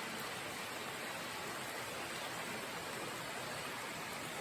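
Creek water running steadily: an even rush with no breaks or separate splashes.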